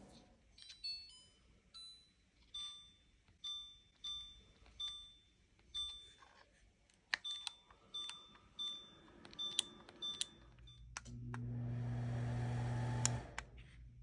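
Winix air purifier beeping in answer to remote button presses: about a dozen short, high beeps at uneven intervals. About ten and a half seconds in, a fan starts up with a steady hum and rushing air, then cuts off near the end.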